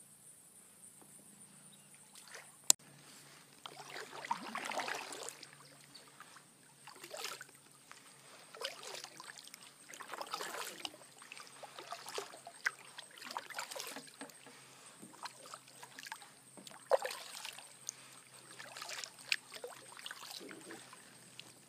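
Kayak paddle strokes dipping and pulling through calm creek water, each with a splash and drip, about every two seconds. A single sharp click comes a little under three seconds in.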